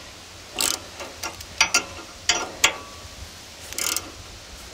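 Ratchet wrench clicking in short, irregular strokes as it turns the forcing screw of a gear puller, drawing a stuck bearing race slowly off a trailer axle.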